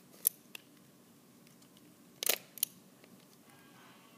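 Plastic clicks of a Skewb twisty puzzle being turned by hand, the freshly reassembled puzzle working again: two sharp clicks near the start and a short cluster of clicks about two seconds in.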